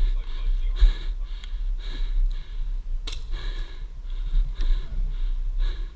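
A player's heavy, quick breathing close to the microphone, about two breaths a second, with a single sharp click about three seconds in.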